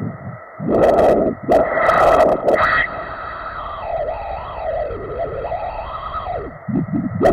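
Pulsed-wave Doppler ultrasound audio of blood flow at a sapheno-femoral junction: several loud surging whooshes in the first three seconds, then a softer wavering whoosh that drifts up and down in pitch. The trace shows the flow going both ways, a sign of reflux through a junction disconnected without triple ligation.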